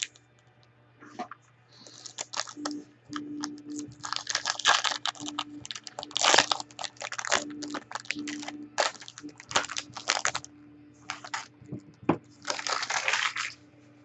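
A trading-card pack and its cards being handled: repeated short bursts of crinkling, tearing and rustling with sharp clicks, over a faint steady hum.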